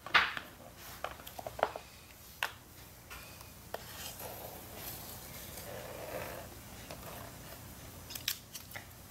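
Small plastic Littlest Pet Shop figures being handled and set down on a wooden floor: scattered light taps and clicks. A stretch of soft rustling in the middle as small paper squares are handled.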